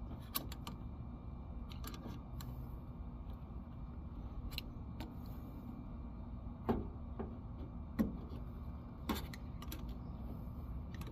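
Scattered light clicks and knocks of the fuel pump unit's small metal and plastic parts being handled and taken apart, over a steady low background rumble.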